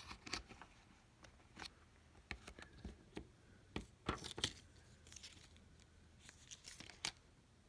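Faint, scattered light clicks and scratchy scrapes of small-parts handling: fingers and tools working at an iPhone 6s battery's adhesive pull tabs, which are failing to pull out cleanly.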